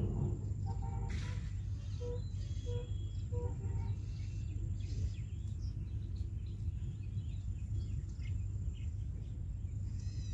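Outdoor ambience: a steady low rumble with birds chirping now and then, a few short repeated notes in the first few seconds, and a thin, steady high insect whine.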